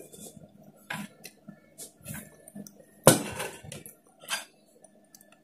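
Metal cutlery clinking and scraping against a ceramic plate in short, scattered knocks, with one louder clunk about three seconds in.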